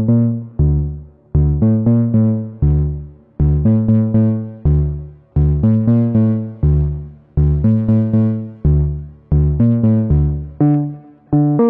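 Moog Subsequent 25 analog synthesizer playing a repeating pattern of pitched notes in a low-to-middle register, each note starting sharply and fading away before the next.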